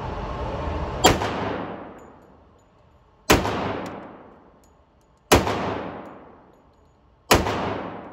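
Pistol fired four times, one shot roughly every two seconds, each crack followed by a long echoing decay from an indoor shooting range.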